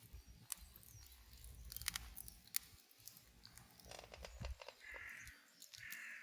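Scattered light clicks and knocks, then two short, harsh crow caws about a second apart near the end.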